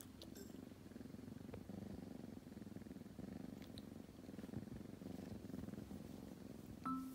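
Tabby-and-white kitten, just woken up, purring steadily in a low, even rumble. Background music with mallet-percussion notes starts near the end.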